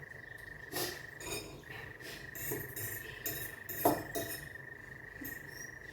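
Noodle-eating sounds: scattered slurps and clinks of cutlery against a bowl, the sharpest about four seconds in, over a steady high-pitched whine.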